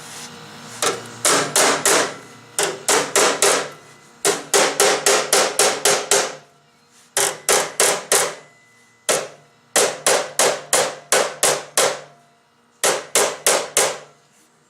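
Hammer blows on steel sheet metal of a car's frame tunnel, in six quick runs of four to ten strikes at about four a second, each blow ringing briefly, with short pauses between the runs.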